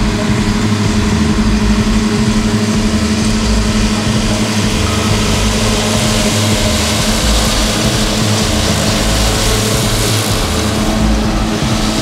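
Tractor engine under load driving a Kverneland 3332FT front disc mower and 5087MN butterfly disc mowers through standing grass. A steady drone with a constant hum and a busy hiss from the cutting.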